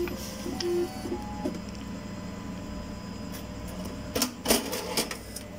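Cash deposit machine's note-handling mechanism running as it returns the banknotes from a cancelled deposit, with a few sharp clacks about four seconds in.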